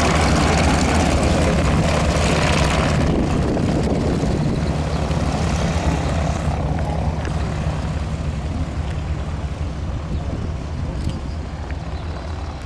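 The Junkers Ju 52/3m's three Pratt & Whitney R-1340 Wasp nine-cylinder radial engines running at taxi power, a steady deep drone. The sharper upper edge drops away about three seconds in, and the drone then fades gradually as the aircraft taxis away.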